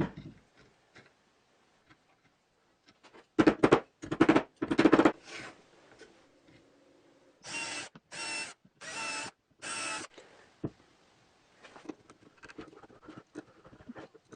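A power drill running in short bursts, driving the screws that fix a faceplate to a wooden bowl blank. There are a few rougher, louder runs, then four even whirs of about half a second each, about a second apart, followed by small clicks and knocks of handling.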